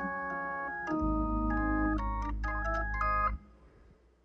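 Organ playing sustained chords over a held bass note, the lead-in to a gospel song; it stops short about three and a half seconds in.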